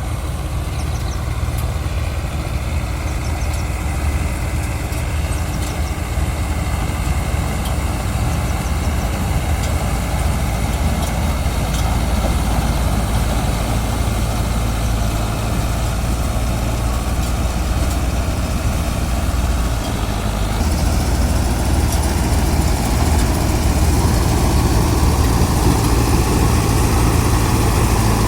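Engine of wheat-harvesting machinery running steadily with a low, even hum; about twenty seconds in, its tone shifts and it gets slightly louder.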